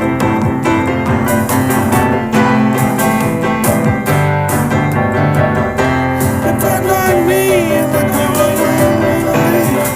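Electronic music track: electric piano chords over a sampled drum beat. About two-thirds of the way in, a wavering, gliding melody line comes in on top.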